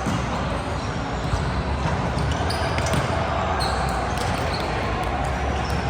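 Sounds of an indoor court game: a ball bouncing with sharp strokes against a steady, echoing hall background of players moving and voices.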